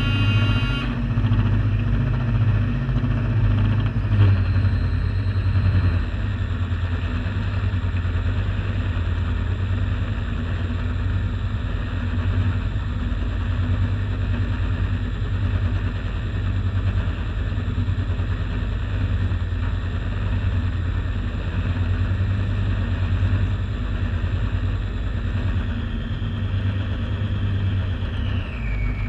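A radio-controlled model warship's motor running under way, recorded from on board: a steady low hum with water rushing along the hull, and a thin high whine that drops in pitch near the end.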